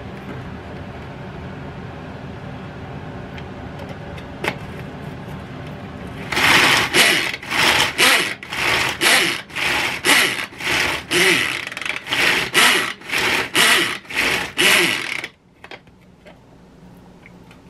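Food chopper's spinning blades whirring in about a dozen short, evenly spaced bursts, chopping food finely. The bursts begin about six seconds in over a steady background hum and stop a couple of seconds before the end.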